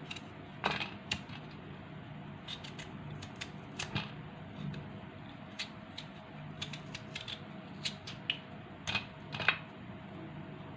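Kitchen knife paring the green skin off a watermelon rind: irregular sharp cutting clicks and scrapes. The loudest come about a second in and near the end.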